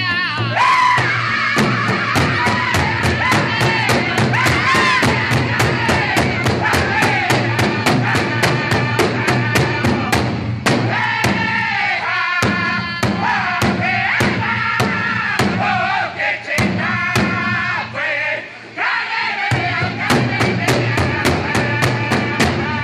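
Powwow drum group: several men striking one large shared drum together with padded sticks in a steady beat of about three strokes a second, while singing loudly in unison in high voices.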